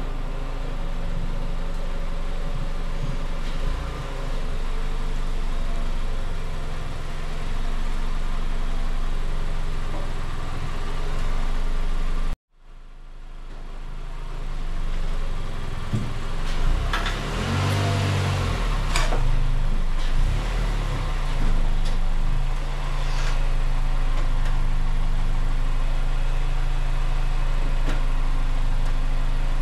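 Mazda CX-5 engine running as the SUV is driven up onto metal portable ramps. There is a steady low engine hum, then about halfway through a louder stretch with a few clunks as the front wheels climb the ramps, then steady idling once the car is up.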